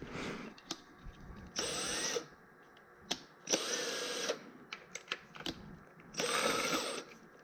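Electric drill run in three short trigger bursts, its motor whine rising as it spins up each time, with small clicks of handling between the bursts.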